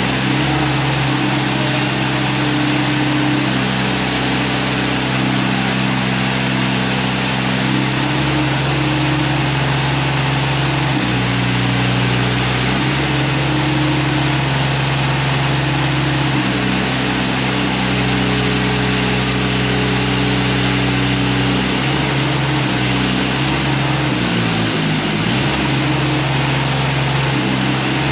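Engine of a compact remote-controlled demolition machine running steadily as its hydraulic boom is moved. The engine note shifts to a new pitch several times, with a brief wavering dip near the end.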